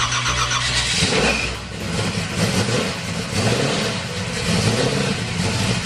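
The 632 cubic-inch big-block V8 in a 1968 Chevrolet Camaro running, its note wavering unevenly up and down.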